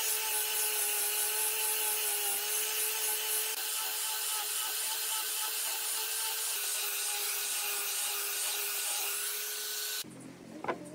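Angle grinder with a sanding disc running at a steady whine as it sands along a wooden rod, with the hiss of abrasive on wood. It cuts off near the end, followed by a light click.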